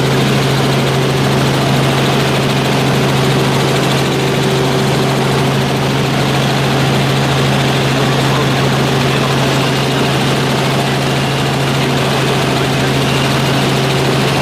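Helicopter cabin noise in flight: the steady drone of the rotor and engine, with a strong low hum over a wide hiss.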